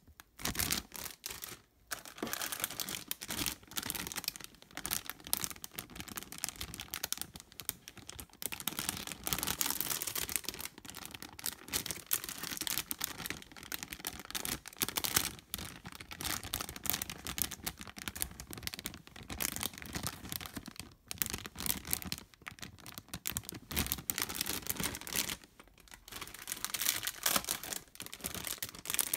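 Clear plastic bags crinkling and crackling as they are handled, with the plastic model-kit runners inside shifting against the film. The crackle begins a moment in and keeps going, dropping away only briefly a few times.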